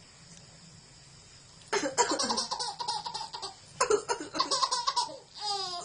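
A man coughs and a baby answers with bursts of laughter, twice, starting a little under two seconds in. Near the end comes a short high gliding squeal of baby laughter.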